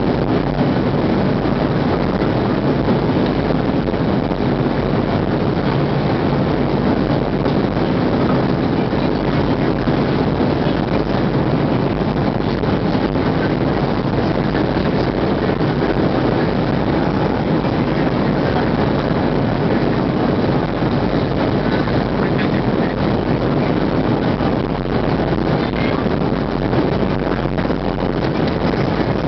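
Steady cabin noise of a Boeing 737-700 in flight, heard from a window seat beside the wing: the drone of the CFM56-7B turbofan engines blended with rushing airflow. It holds at an even level throughout.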